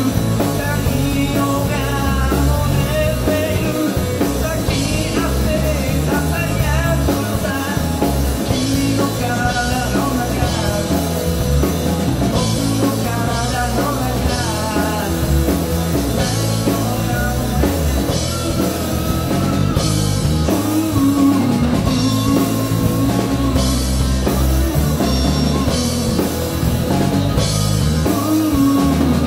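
Live rock band playing: electric guitar, electric bass and drum kit, with a sung vocal line over them.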